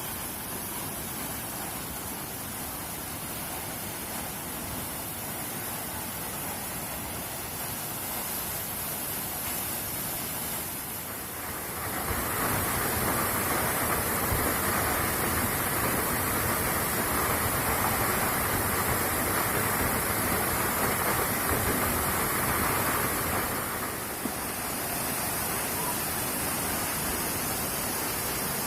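Large waterfall roaring: a steady rush of falling water. It grows louder about twelve seconds in and eases somewhat again about twenty-four seconds in.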